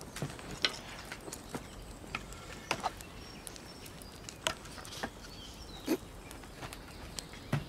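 Scattered small cracks and clicks of wood, irregular and a second or so apart, over faint outdoor forest ambience, with a few faint high chirps around the middle.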